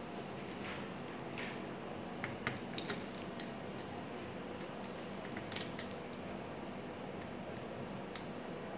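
Small plastic clicks and taps as a photocopier drum is handled and seated into the plastic housing of a Kyocera DK-5140 drum unit, over a steady background noise. The sharpest clicks come as a quick pair a little past the middle, with another near the end.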